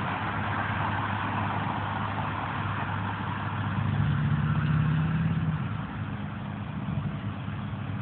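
Road traffic with a truck's engine running steadily. The engine grows louder for a second or two about halfway through, then eases off.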